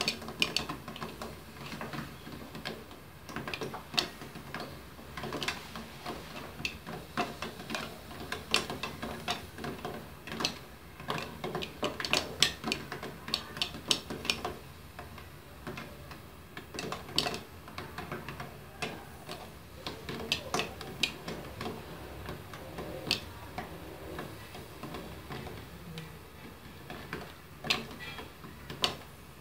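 Live click beetles dry-roasting in a covered pan, jumping in the heat against the pan and its glass lid: irregular sharp clicks and taps, some in quick clusters. The beetles are not yet all dead.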